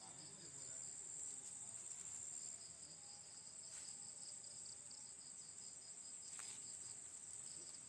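Insects trilling steadily: a constant high-pitched whine with a lower, rapidly pulsing trill beneath it, faint, with a couple of soft clicks about halfway and near the end.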